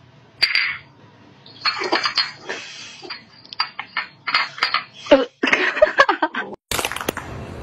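Kitten eating kibble and egg from a small ceramic dish on a marble floor: irregular clicks of kibble and dish on stone, crunching and wet lapping, with a few short squeaks. It cuts off suddenly near the end into a steady rushing noise.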